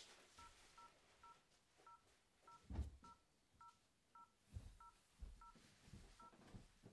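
Faint telephone keypad dialling a number: eleven short touch-tone beeps, each a pair of tones, keyed at an uneven pace. A few soft low thumps come with them, the loudest about three seconds in.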